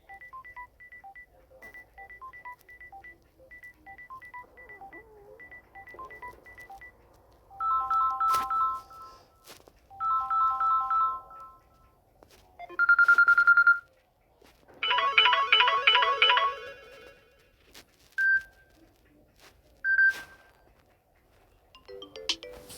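Samsung Galaxy A01 Core stock ringtones previewed one after another from the phone's speaker: faint quick beeping at first, then a run of short electronic melodies and chimes, each cut off after a second or two. The loudest is a single sustained high tone a little past halfway.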